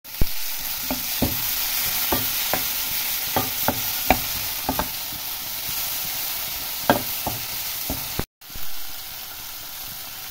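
Chopped tomatoes and onions sizzling in oil in a frying pan as a tadka, stirred with a spatula that clicks and scrapes against the pan every so often. The sound cuts out for a moment about eight seconds in.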